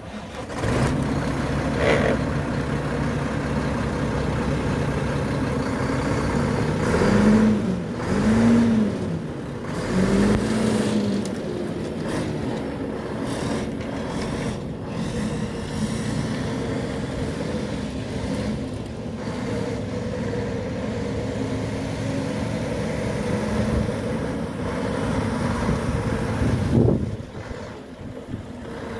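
Diesel engine of a 2003 Mack CH613 truck tractor running as the truck is driven around, revving up and falling back three times about seven to eleven seconds in. A short loud burst comes near the end.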